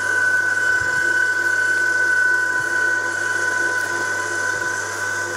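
Electric pasta rolling machine's motor running with a steady high whine over a low hum, turning the rollers as a sheet of fresh pasta dough is fed through.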